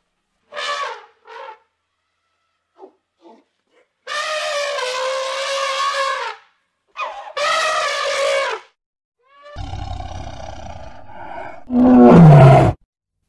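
Elephant trumpeting: a couple of short blasts, then two long, bright trumpet calls of about two seconds each. Near the end comes a rougher call and then the loudest call, which falls in pitch.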